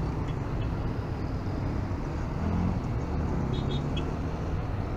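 Yamaha NMAX scooter's single-cylinder engine running as the scooter picks up a little speed in slow traffic, a steady low rumble mixed with road and traffic noise.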